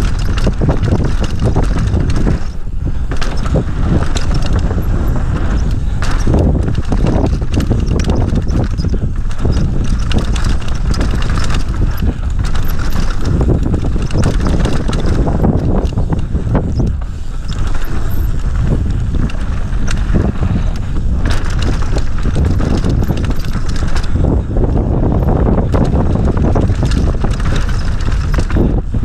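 Downhill mountain bike descending a dirt trail at speed: tyre noise over packed dirt and roots, with frequent knocks and rattles from the bike as it hits bumps, and steady wind on the microphone.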